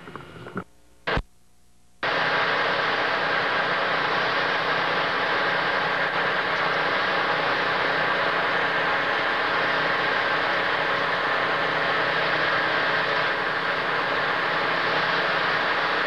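A short click about a second in. Then, from about two seconds in, a snow blower runs steadily at close range, a loud even noisy drone with no clear engine pitch.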